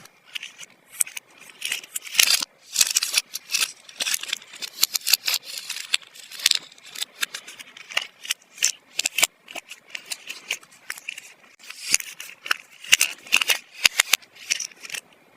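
Close handling of small plastic toy pieces and packaging: a dense, irregular run of clicks, crinkles and rustles, pausing briefly near the middle.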